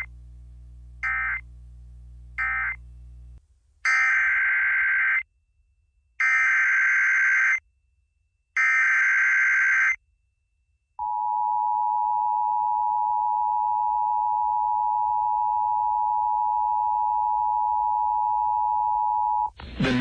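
Emergency Alert System tones on FM radio. Three short SAME end-of-message data bursts close out one alert. Then three longer SAME header bursts mark a new severe thunderstorm warning, followed by the steady two-tone attention signal for about eight seconds, which stops as the synthesized voice message begins.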